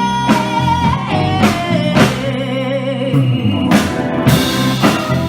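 Five-piece soul-blues band playing: a long held vocal note with vibrato over drum kit and bass, then the band continues with regular drum hits.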